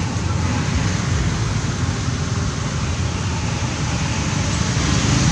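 Steady outdoor background noise: a flickering low rumble under an even hiss, with no distinct events.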